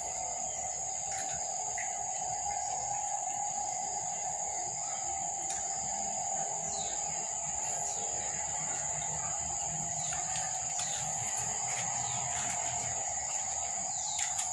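Steady high-pitched drone of insects, with a lower steady hum under it and a few brief chirps.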